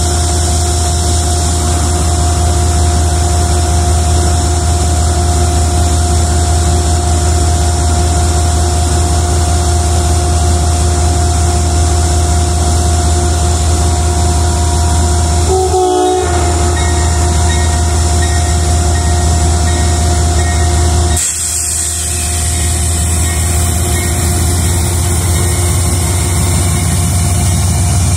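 Amtrak GE Genesis P32AC-DM diesel locomotive running loud and close, a steady low engine hum with a few steady pitched tones over it. About three-quarters through, a hiss of air comes in and the engine sound dips, then builds again as the locomotive starts to pull its train away.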